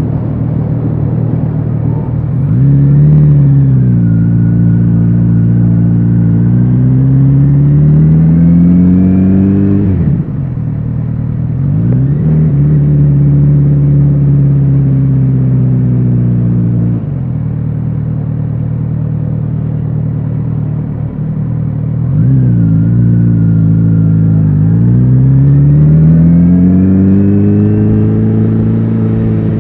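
Kawasaki Z900RS inline-four engine and exhaust under way. The revs climb twice with a brief dip between, then the throttle closes sharply about ten seconds in. It settles at lower revs before dropping to a low idle-like run. From about two thirds of the way through it pulls away again with climbing revs.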